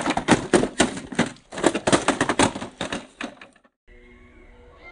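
A 1/18-scale Chevrolet K10 RC crawler tumbling down a rock face, its hard plastic body and chassis clattering against the stone in a rapid run of knocks in two bursts. After a short break near the end, the faint steady whine of its electric motor as it drives.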